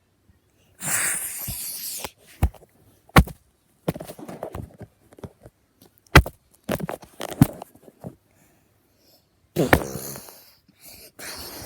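Toy action figures played out in a mock fight: sharp plastic clicks and knocks mixed with hissing, mouth-made fight sound effects.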